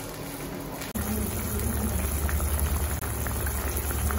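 A pot of tamarind kuzhambu boiling, a steady low rumble with faint small pops that steps up about a second in.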